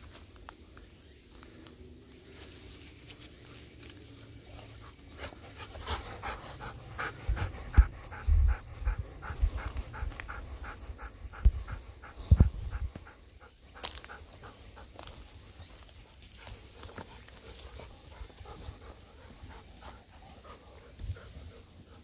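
Golden retriever panting, quick even breaths at about four a second, with a few dull low thumps as the loudest sounds.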